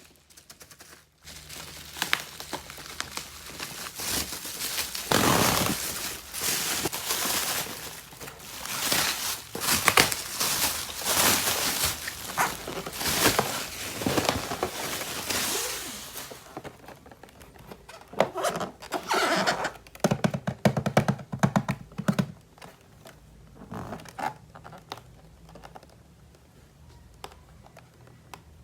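Plastic toy parts and packaging being handled: dense rustling with many sharp clicks for about fifteen seconds, then sparser clicks and taps of plastic pieces.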